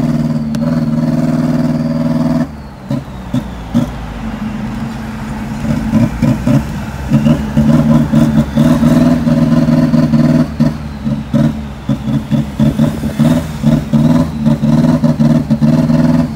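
Pickup truck engine running on the road: a steady note that drops away about two and a half seconds in, then builds again and turns choppy and pulsing from about six seconds on.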